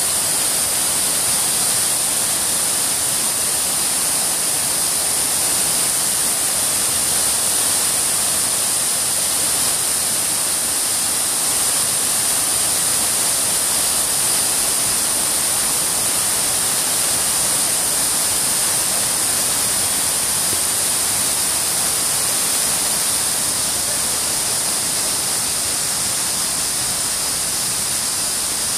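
Fountain jets and water cascading down a stepped stone water wall, a steady splashing rush.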